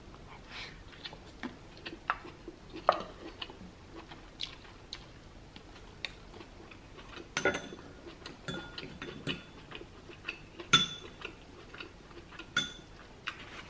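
Mukbang eating sounds: irregular mouth clicks and chewing, with a metal fork and wooden spoon scraping and tapping a metal frying pan. The loudest are three ringing clinks of the fork against the pan, in the second half.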